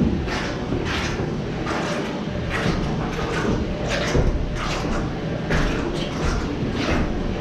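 Footsteps on wooden stairs and plank decking, a few steps a second at a walking pace, over a steady low machine hum.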